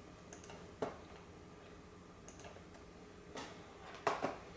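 A few faint, scattered small clicks and taps, the sharpest about a second in and two more close together near the end, over a quiet room background.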